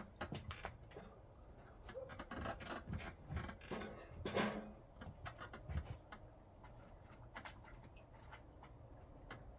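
Hand work with tools and small parts: scattered clicks, light scrapes and knocks, the loudest knock about four and a half seconds in, growing sparser in the last few seconds.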